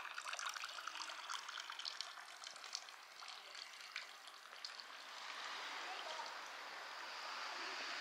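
Water trickling and splashing into a stone fountain basin, fading away over the first few seconds. Then a steady rushing noise swells up in the second half.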